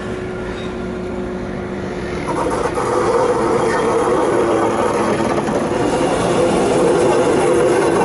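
Lyon T3 tram pulling away: a steady hum with held tones, then about two seconds in the running noise grows louder as it picks up speed on the rails.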